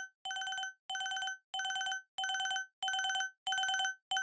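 Electronic alarm beeping in short bursts of four or five rapid high-pitched beeps, about three bursts every two seconds: the wake-up alarm signalling that the 30-minute nap timer has run out.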